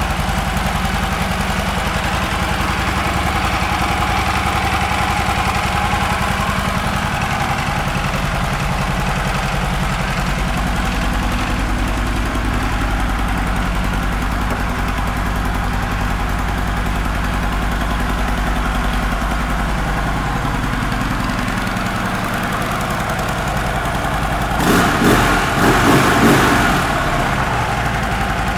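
2013 Harley-Davidson Road Glide Ultra's Twin Cam V-twin idling with its even, loping pulse. Near the end the throttle is blipped a few times, each rev briefly louder, before it settles back to idle.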